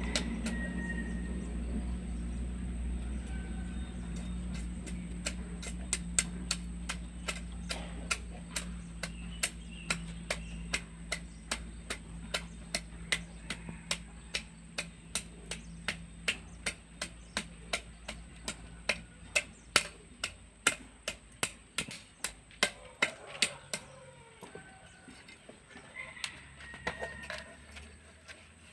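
A run of sharp, evenly spaced knocks, about two a second, starting a few seconds in and stopping near the end, over a low engine-like hum that slowly fades away and a steady high thin tone.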